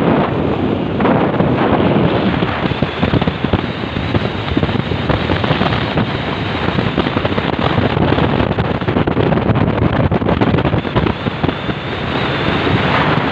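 Loud wind buffeting the microphone over a 75 hp outboard motor running at speed, with water rushing and splashing past the hull of a boat under way.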